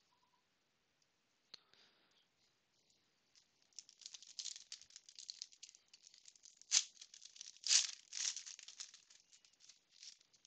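Foil trading-card pack wrapper crinkling and tearing as it is ripped open by hand. It starts a few seconds in, with two sharper rips a little past the middle.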